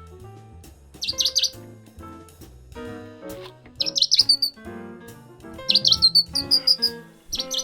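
Four short bouts of high, lovebird-style chirping over background music with a beat.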